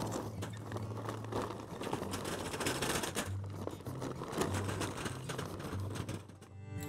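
Charcoal briquettes poured from a bag onto hot, ash-covered coals in a metal tray, clattering in a dense run of small irregular clicks: fuel being added to the fire after the first hour.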